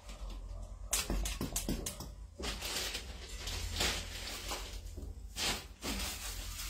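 Hand-pump cupping gun squeezed repeatedly on plastic suction cups, each stroke a short click and hiss as air is drawn out of the cup to pull it onto the skin. A quick run of strokes about a second in, then a few more spread out later.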